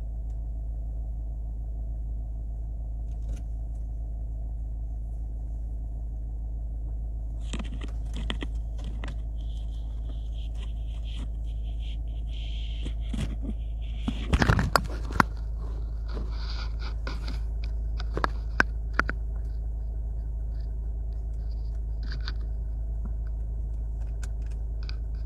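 Steady low rumble of a car driving, heard from inside the cabin. Scattered clicks and scrapes come in from about a third of the way through, with the loudest cluster a little past halfway.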